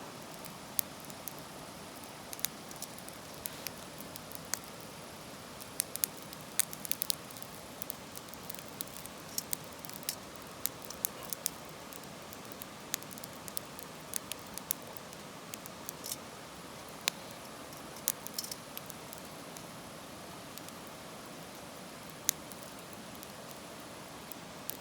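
Wood fire crackling in a fire stand: irregular sharp pops and snaps over a steady hiss.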